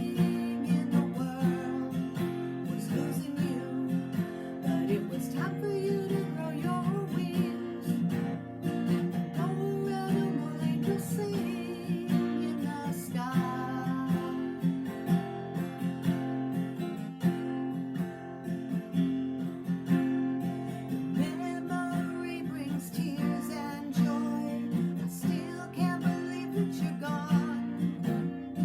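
Acoustic guitar strummed and picked in a steady rhythm, playing a song.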